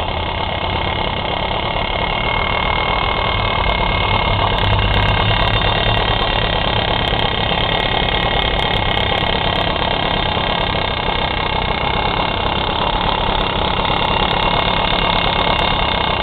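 Sachs Spartamet moped's small two-stroke engine running steadily, with a steady high-pitched whine over the engine note; the owner finds the noise annoying and does not know its cause.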